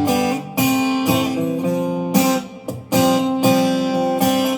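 Acoustic guitar strumming chords in a steady rhythm, each chord struck and left to ring before the next.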